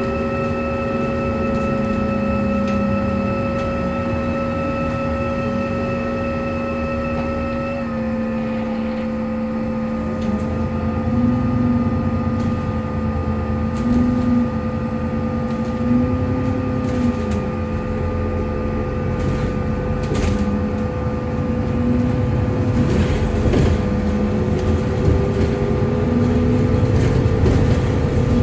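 Alexander Dennis Enviro 400MMC double-decker bus in motion, heard from inside: a loud whirring whine made of several steady tones over engine and road rumble. The whine steps down slightly in pitch about eight seconds in, and a lower tone rises near the end.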